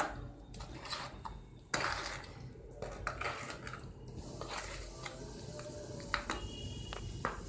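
Scattered scraping and clattering as wet soil and sand are worked by hand around a sapodilla sapling in a plastic pot, with a few sharper knocks.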